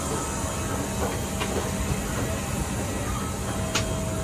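Steady hiss and hum inside a parked Boeing 737-800 cabin during boarding, the sound of the cabin air-conditioning airflow, with a steady low hum joining about half a second in. A single sharp click near the end.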